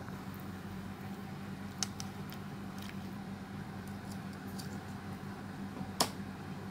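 A fork prodding and piercing the skin of boiled pork belly in a pot of water, with faint scattered ticks and two sharper clicks, over a steady low hum.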